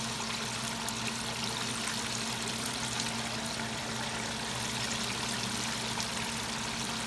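Hot oil in a deep pot bubbling and sizzling steadily, with many small crackles, as battered mountain oysters (calf testicles) fry in it.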